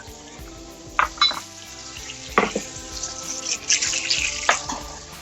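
Kitchen utensils and dishes knocking and clinking a few times as the counter is cleared, over the light sizzle of a hot pan of garlic butter with resting steaks. Faint background music runs underneath.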